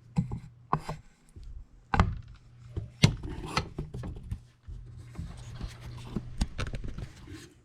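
Handling noise from hands working in a tight space: a handful of sharp knocks and taps among rubbing and scraping, over a steady low hum.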